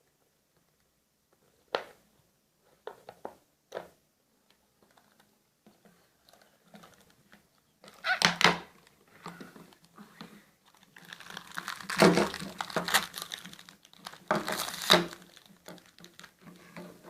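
Plastic toy packaging crinkling and rustling as it is handled, with a few light knocks in the first few seconds and louder crinkling bursts from about halfway through.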